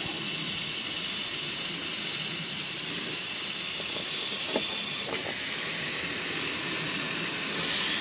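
Steady hiss of water spraying from a hose onto an overheated air-conditioning compressor. The water cools the compressor so that its internal thermal overload will reset.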